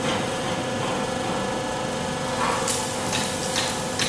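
UD light-keel roll forming machine running, its motor and hydraulic pump giving a steady hum with a constant tone. From a little before three seconds in, a few short hissing bursts come over the hum.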